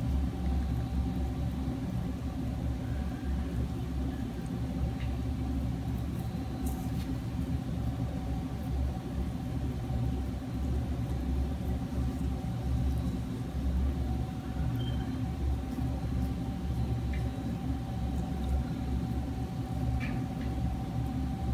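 Steady low room rumble with a faint steady hum above it, unchanging throughout; no distinct event stands out.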